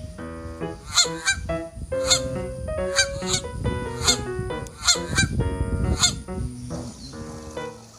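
A series of short duck quacks, coming roughly every half second to second, over a background music track with steady melody notes.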